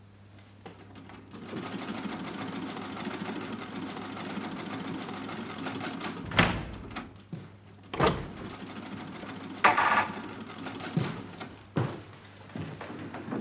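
A sewing machine runs steadily for a few seconds. About halfway through it gives way to a series of loud, separate knocks and bangs.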